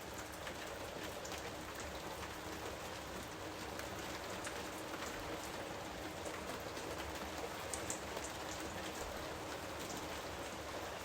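Steady rain falling on a surface, with scattered small drips and ticks of individual drops.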